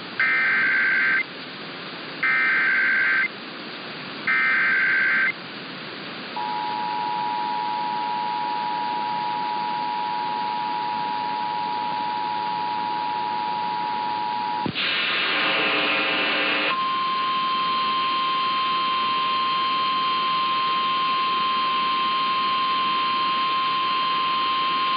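Emergency Alert System activation for a severe thunderstorm warning. Three short bursts of warbling SAME header data, about two seconds apart, are followed by the steady two-tone EAS attention signal for about eight seconds. After a brief harsh buzzing burst comes a steady single-tone weather-radio warning alarm.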